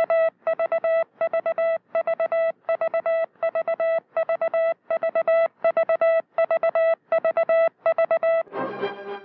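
Morse code: a single buzzy audio tone keyed on and off in short dits and longer dahs, sent in quick, evenly spaced groups. Just before the end the keying stops and music comes in.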